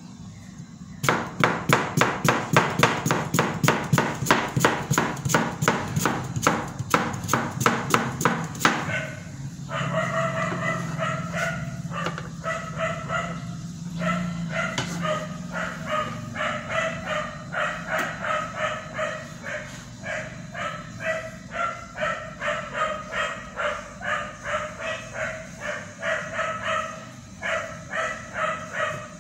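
A cleaver chopping cabbage on a wooden cutting board in quick, even strokes, about four a second, starting about a second in. After about nine seconds the strokes give way to a repeated pitched sound, about two pulses a second, that keeps its pitch to the end.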